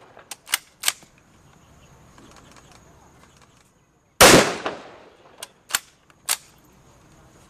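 Bolt-action rifle being worked and fired: a few sharp metallic clicks of the bolt being cycled, then one loud shot about four seconds in that echoes away, followed by three more bolt clicks.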